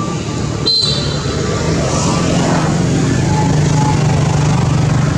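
Steady low rumble of a motor vehicle engine running nearby, with a continuous hum and road noise.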